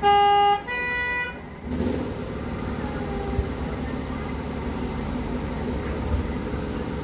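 Two-note horn of a 7¼-inch gauge miniature railway locomotive, a lower note then a higher one, each about half a second long, signalling the train's departure. About a second and a half in, a steady low rumble starts as the train gets under way on the track.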